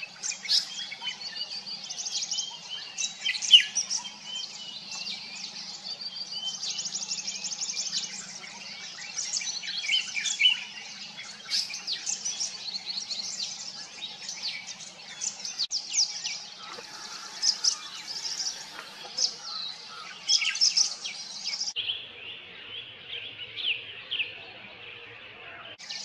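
Wild birds chirping and calling in a busy chorus of short, high notes and quick trills, with one loud sharp note about three and a half seconds in.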